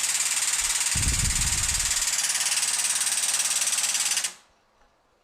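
Shop press powered up to press a cap screw into a knob: a loud, rapidly pulsing hiss of its pump, stopping abruptly about four seconds in.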